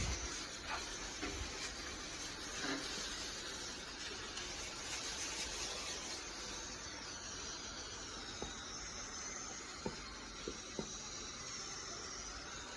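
Steady hiss of a pressure washer's water spray, with a few faint ticks near the end.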